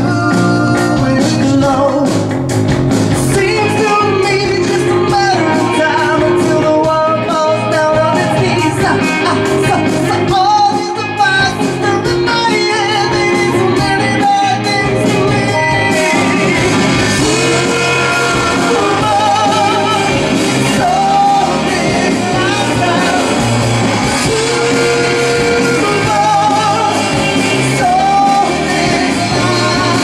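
Rock band playing live: a man singing lead over drum kit, electric guitar, bass guitar and keyboard. The sound turns brighter and fuller about halfway through.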